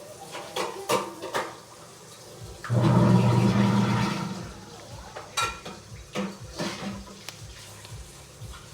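Hands handling and opening the plastic packaging of a squishy toy: scattered clicks and rustles, with a louder steady, hum-like sound lasting about a second and a half near three seconds in.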